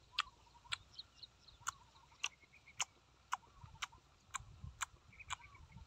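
Close-miked chewing: sharp wet mouth clicks and smacks at about two a second as a man chews fresh herb leaves, with faint bird chirps behind.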